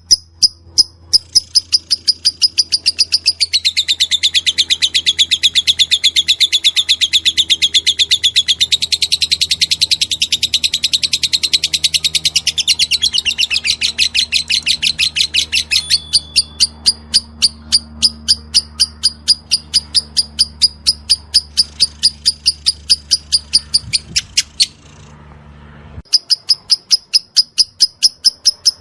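Lovebird singing in the rapid 'ngetik' (typing) style: a long run of fast, dense chatter, then evenly spaced sharp ticks about three a second. The ticks break off for about a second near the end, then start again.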